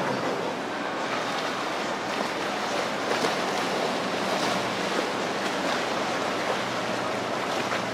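Water rushing and splashing from a passing motorboat's hull and wake, with a steady low engine hum underneath.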